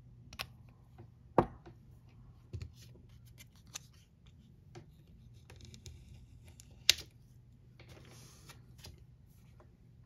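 Nail-stamping tools handled on a metal stamping plate: a series of sharp clicks and taps, two of them loud, and a short scraping sound about eight seconds in.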